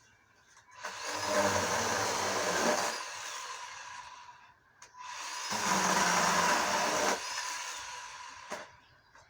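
24-volt electric chainsaw with a 10-inch bar, run twice for a few seconds each, cutting tree branches; each burst starts quickly and tails off.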